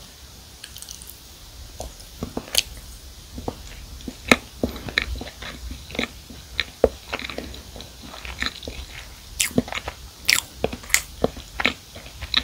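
Close-miked chewing of a mouthful of marshmallow-filled s'more cookie: irregular mouth clicks that come thicker in the last few seconds.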